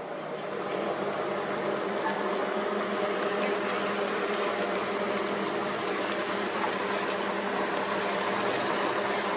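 A steady mechanical hum with a hiss and several steady tones, swelling over the first second and then holding even.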